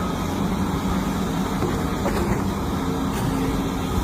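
Excavator engine running steadily.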